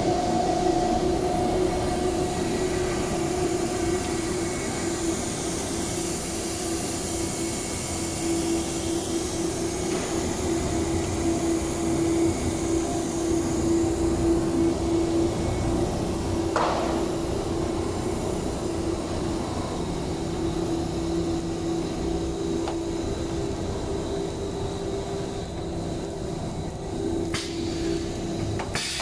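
PVC window-profile extrusion line running: steady machine noise with a constant mid-pitched hum, and one short knock a little past halfway.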